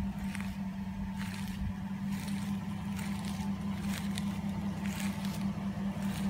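Chevrolet Silverado extended-cab 4x4 pickup's engine idling with a steady low hum. Footsteps on pavement tap about twice a second over it.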